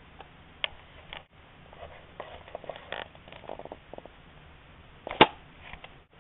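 Quiet pause filled with faint scattered clicks and rustles, with one sharp click about five seconds in.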